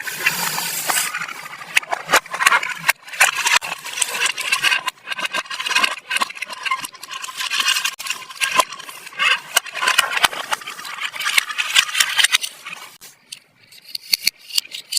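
Small plastic toy pieces and packaging being handled: a dense run of light clicks and crinkling rustle, easing off briefly near the end.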